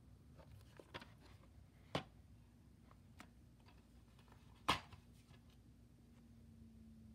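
A few faint clicks and knocks from handling, the loudest about two-thirds of the way through, over a low steady hum.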